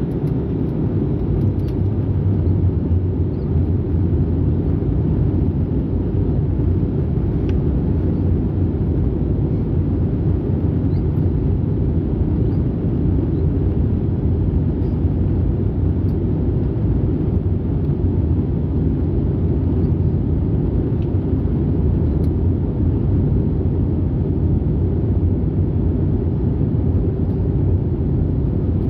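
Steady low rumble of engine and airflow noise inside the cabin of an Airbus A320-family airliner during its descent.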